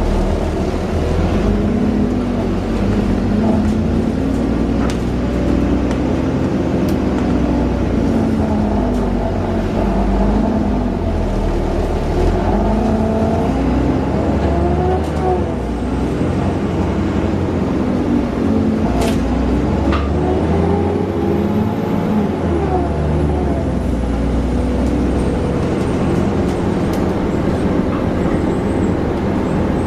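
Alexander Dennis Enviro400 double-decker bus heard from on board while under way. Its engine and transmission run loudly, their pitch rising and falling several times as it accelerates and changes gear. A faint high whistle sweeps up and down about two-thirds of the way through.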